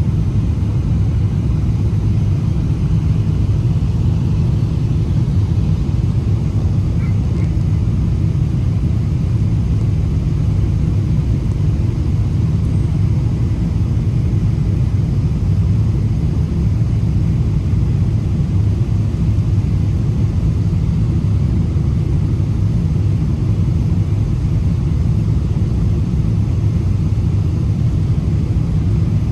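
Steady low rumble of a Boeing 787 Dreamliner's engine and airflow noise, even in level throughout, with no touchdown or other sudden event.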